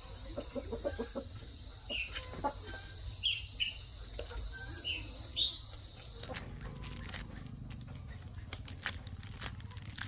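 Chickens calling with short, high, falling peeps, about one a second, over a steady high whine. From about six seconds in, the calls stop and dry crackling and rustling take over.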